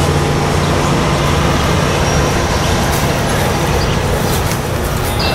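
Tri-Rail diesel commuter train moving away through a grade crossing: a steady low rumble of the locomotive's engine and wheels on the rails that thins slightly as it recedes.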